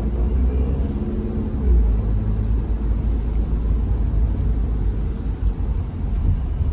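Car interior road noise while driving: a steady low rumble from the engine and tyres.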